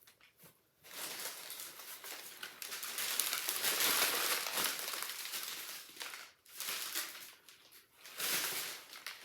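Packaging rustling and crinkling as a shipping box is opened and unpacked by hand, in one long stretch followed by two shorter ones.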